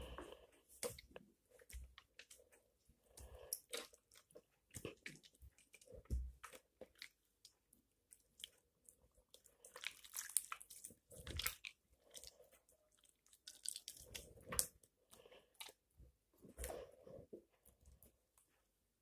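Slime being squeezed and kneaded by hand and pressed onto a table: irregular bursts of soft sticky crackles and clicks with short pauses between them.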